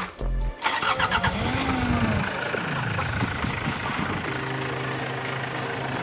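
A Mitsubishi Delica van's diesel engine cranking and catching, revving up and dropping back, then settling into a steady idle about four seconds in.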